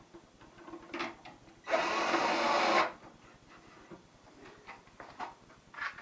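Light clicks and knocks of parts being handled, broken by one harsh mechanical burst about a second long, about two seconds in.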